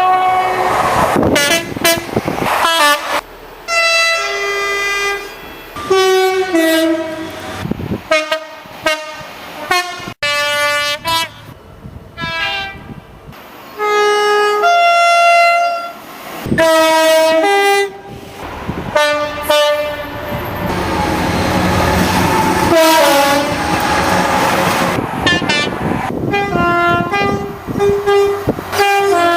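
A quick succession of British train two-tone horns, many short clips cut together. Each blast sounds two notes one after the other, high and low. About two-thirds of the way through, a train's running rumble comes up between the horns.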